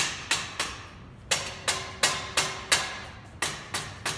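Rubber mallet striking a steel tube part to drive it onto the sockets of a steel frame: about a dozen light blows, roughly three a second, with a short pause about half a second in. Some blows leave a faint metallic ring.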